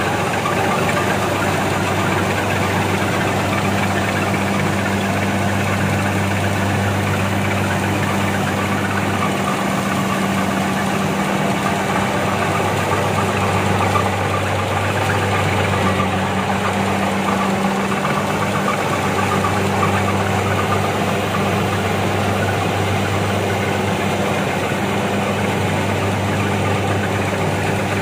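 Kubota DC-70 rice combine harvester running steadily under load while it cuts and threshes rice: a continuous diesel engine hum mixed with the clatter of its cutting and threshing machinery. The low engine note weakens briefly around the middle.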